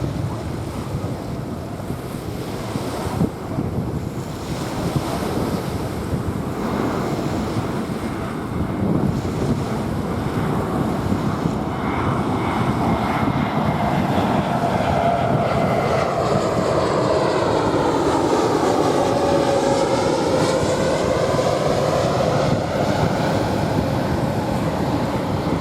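Jet airliner passing overhead, growing louder through the first half and loudest about three-quarters of the way in. Its sound sweeps down and back up in pitch as it goes over. Waves wash on a sandy shore underneath, with wind on the microphone.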